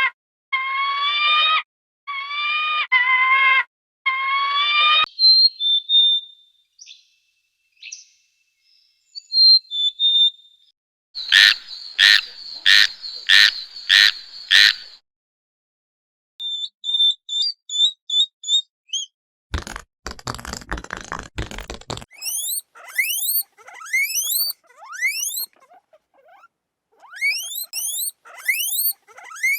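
A string of different animal calls following one another: wavering pitched calls, thin whistles, a run of about six sharp repeated calls, a short harsh buzz, then many quick rising chirps.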